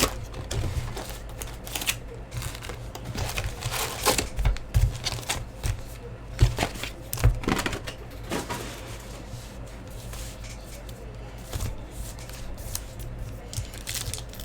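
A sealed hobby box of trading cards being opened and its packs handled: scattered clicks, taps and plastic wrapper crinkling at irregular intervals.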